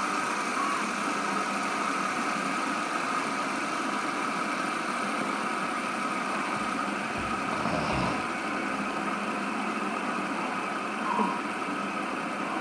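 Fidget spinners spinning on a wooden tabletop, their ball bearings giving a steady whir, with a soft bump about eight seconds in.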